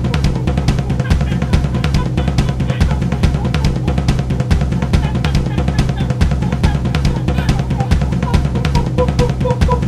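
Background music carried by a fast, steady drum-kit beat with bass drum and snare.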